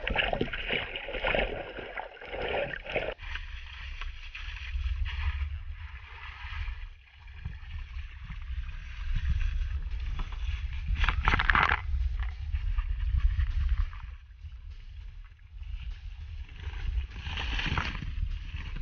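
Water sloshing and lapping around a small boat under a steady low rumble, with two louder splashy surges, one about eleven seconds in and one near the end.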